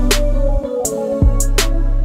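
Background music with a steady drum beat over a deep bass line.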